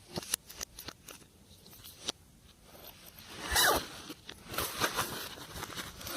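Slime being worked by hand, making sharp clicky pops and squelches. About three and a half seconds in comes a louder squelching stretch that falls in pitch, and another comes near the end.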